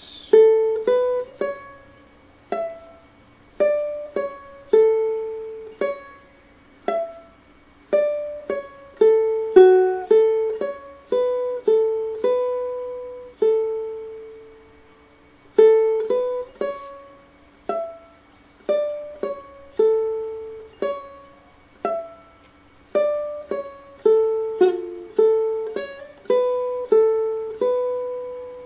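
Ukulele playing a slow single-note melody in A major, each note plucked and left to ring and fade, with a few notes held longer.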